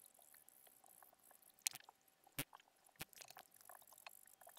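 A few faint, irregular scratches of wet fine-grit sandpaper rubbed over the metal tip of a technical pen, smoothing its rough, scratchy nib.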